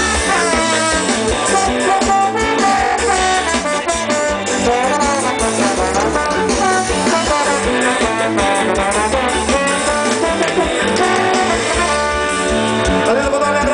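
Live reggae band playing an instrumental passage, a horn section carrying the melody over bass and drums.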